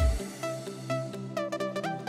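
Background electronic music: the drum beat drops out at the start, leaving sustained synth notes that step and slide in pitch.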